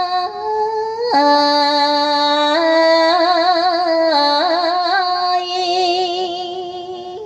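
Background music: a woman singing long held notes with wide vibrato, stepping up and down in pitch, fading out near the end.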